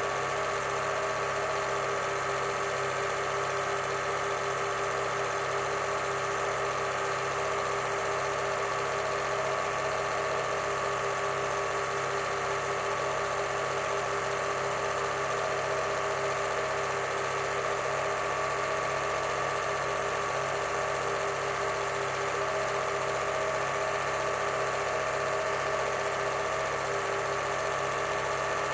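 An 8mm cine film projector running: a steady mechanical whirr made of several constant hum tones.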